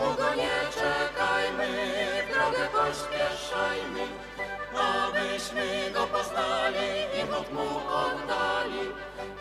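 Mixed folk vocal ensemble, men and women, singing a Polish Christmas carol in several-part harmony.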